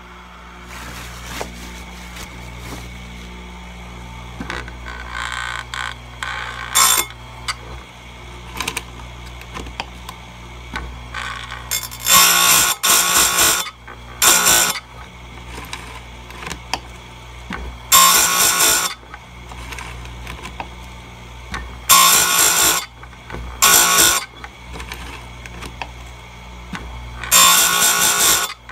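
Power Fist bench-mounted chainsaw chain grinder: the motor runs with a steady hum while the spinning stone is lowered onto the cutters again and again, each contact a short harsh grinding burst of about a second, about six loud ones in the second half. This is a light touch-up sharpening of the chisel cutters on a chain dulled from use.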